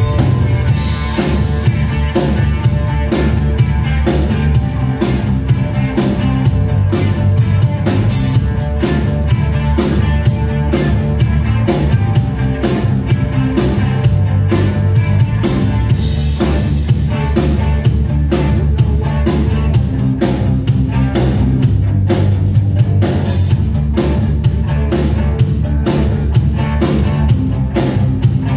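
Live rock trio of drum kit, electric guitar and bass guitar playing a simple, steady rock beat that stomps on the fours, with no vocals.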